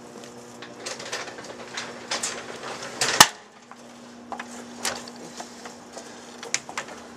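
Microwave oven running with a computer motherboard inside: a steady hum with irregular crackling and snapping, the loudest snap about three seconds in, as the board arcs and burns.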